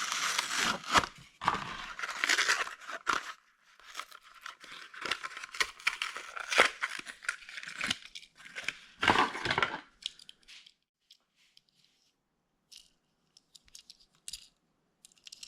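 Toy car packaging being torn open: about ten seconds of tearing and crinkling, then a few faint clicks and taps.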